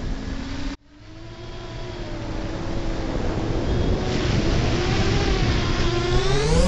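Racing quadcopter's electric motors and propellers whining, the pitch rising and falling with the throttle. The sound cuts out abruptly about a second in, fades back up, and climbs in pitch near the end.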